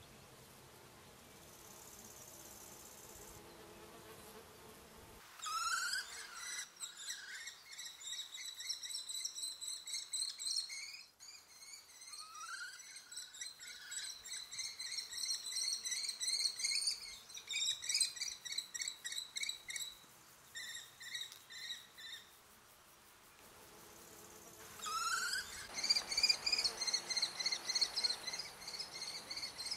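Common kestrels at the nest giving shrill, rapidly repeated trilling calls, each run opening with a short rising note. The calls start about five seconds in, break off briefly near twenty seconds and resume near twenty-five seconds.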